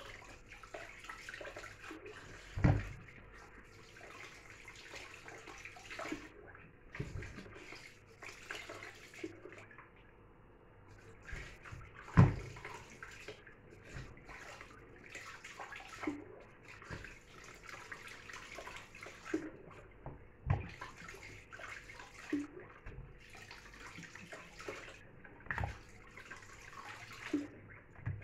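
Kitchen tap running into a plastic basin while raw sheep meat is rinsed and rubbed by hand, with water splashing steadily. Several sharp thumps stand out, the loudest about two and a half seconds and twelve seconds in.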